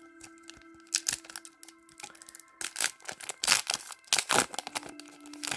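Foil booster pack being crinkled and torn open: a run of short crackling rips and crinkles, loudest around the middle.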